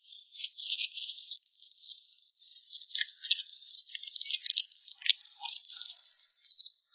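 A sugar glider chewing and licking at a split silkworm pupa, close-miked: a dense run of small, sharp, high-pitched crackles and clicks from the shell and the soft insides.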